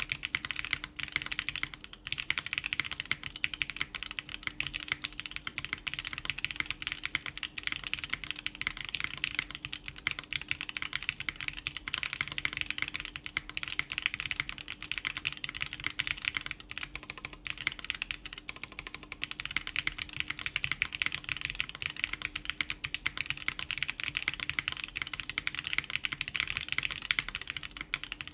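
Continuous fast typing on a mechanical keyboard with factory-lubed Gateron Khonsu switches, GMK keycaps and a polypropylene plate, in an o-ring mount.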